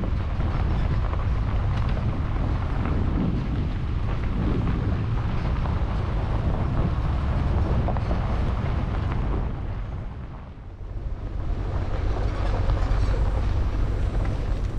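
A car on the move: steady road and wind noise with a heavy low rumble and wind buffeting the microphone. It dips briefly about ten seconds in.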